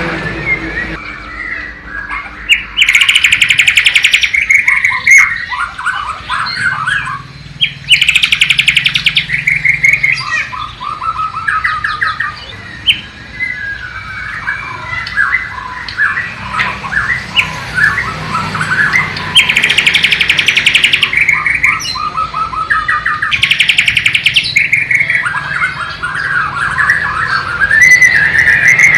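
White-rumped shama (Bornean murai batu) singing a varied song of quick whistled notes, broken several times by loud, very fast trills. Its song is filled with mimicked sikatan londo (nightingale) phrases.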